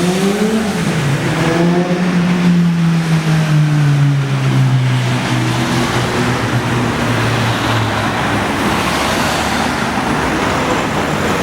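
Road vehicle engine passing: its pitch rises briefly, then falls slowly over the next several seconds, giving way to a steady hiss of tyres and passing traffic.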